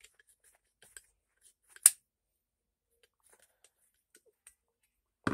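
Flathead screwdriver working a screw on an SKS bayonet's handle: faint scattered scrapes and small metal ticks, with one sharp metallic click just under two seconds in. A loud knock right at the end.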